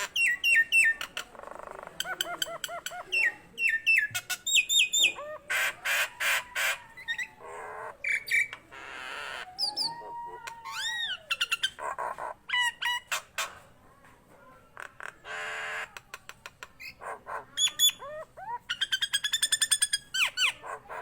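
Nias hill myna calling loudly and continuously in full song: a varied string of clear whistles, arching whistled glides, harsh screeches and quick rattling note series.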